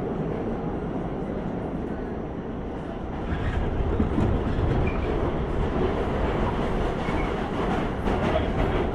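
Subway train running, heard from inside the passenger car: a steady rumble with the clickety-clack of wheels on the track. The rumble grows louder about three seconds in.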